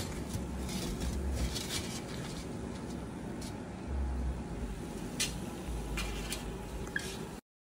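A perforated aluminium fry basket and a wire skimmer being handled over a fish-fry pot: a few light metal clinks and knocks over a steady hiss, with short bouts of low rumbling. The sound cuts off abruptly near the end.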